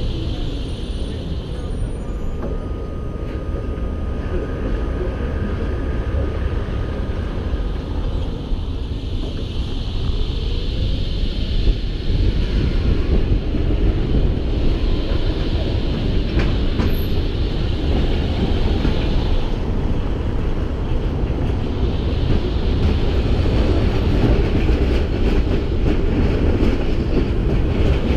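T8M-700IT articulated tram rolling along the rails with a steady low rumble. A faint whine rises and falls in pitch at times.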